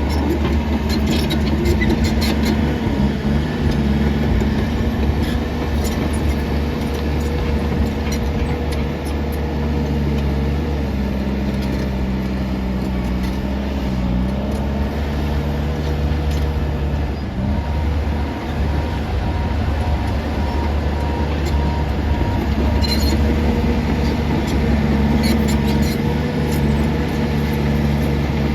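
New Holland D95B crawler bulldozer's diesel engine running steadily while pushing dirt and concrete. Its pitch sags for a couple of seconds about halfway through. Sharp clanks come now and then.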